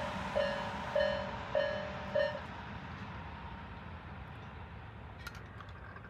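Japanese railway level-crossing alarm of the slow Nikko/Isesaki type, which the uploader calls eerie. It sounds a low electronic tone about every 0.6 s, four more times, then stops about two and a half seconds in as the crossing clears after the train. A fading train rumble lies under it.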